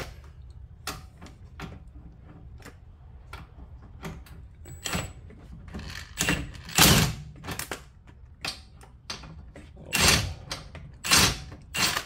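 Impact wrench hammering in several short bursts on an 18 mm bolt, the loudest burst about six seconds in and more near the end, with scattered metal clicks and clunks of tools and suspension parts between them.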